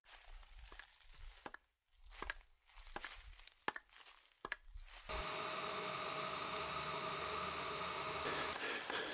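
Footsteps crunching through dry leaf litter and twigs, with irregular cracks and rustles over a low rumble. About five seconds in, a steady, louder burst of harsh static noise takes over for about three seconds, and then the crunching resumes.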